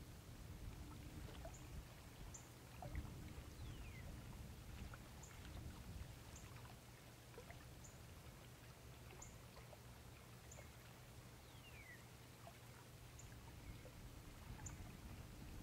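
Near silence at a pond: faint water lapping and trickling over a low steady hum, with scattered thin high chirps and two short downward-sliding whistles, about four seconds in and again about twelve seconds in.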